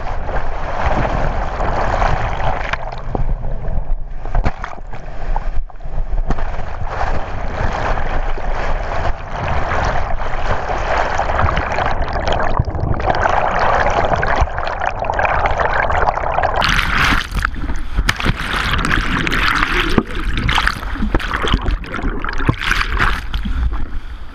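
Turbulent whitewater churning around a kayaker's helmet camera while he is held under and tumbled in a rapid after missing a boof. A loud, dense rush and gurgle of water, muffled at first, with knocks and splashes throughout. It turns brighter and splashier about seventeen seconds in.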